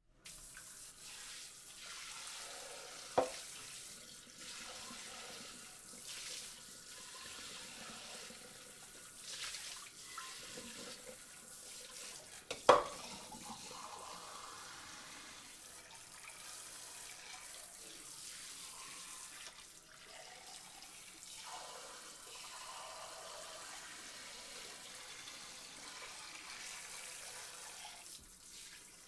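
Water spraying onto dishes in a sink: a steady hiss of running spray. Two sharp knocks stand out, one about three seconds in and a louder one about twelve seconds in.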